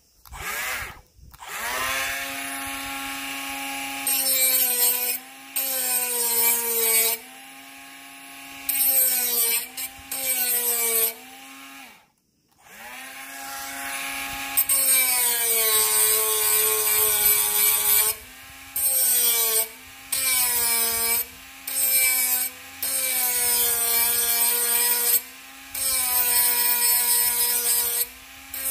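Bosch GWS 12V-76 12-volt cordless mini angle grinder with a 76 mm disc, spinning up and then cutting or grinding in repeated short passes. Each pass brings a loud rasping hiss over the motor's steady whine, and the pitch dips slightly under load. About twelve seconds in it is switched off, then spun up again for more passes.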